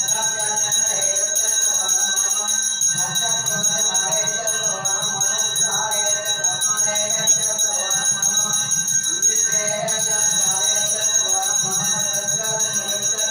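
Temple bells ringing continuously during an aarti lamp offering, a steady high ringing with melodic music underneath.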